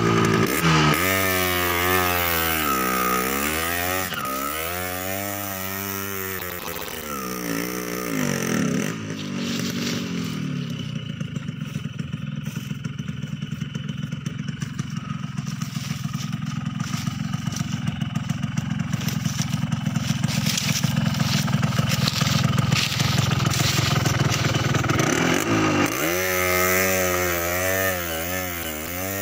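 Two-stroke Yamaha RX Special motorcycle engine revving hard under a heavy load of teak logs on an uphill dirt track, its pitch surging up and down. Through the middle the engine holds high revs more steadily with a rapid exhaust pulse, then the surging revs return near the end.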